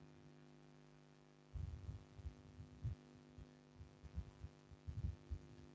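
A steady low electrical hum. From about a second and a half in it is joined by faint, irregular low knocks and bumps from writing on the smartboard with a stylus.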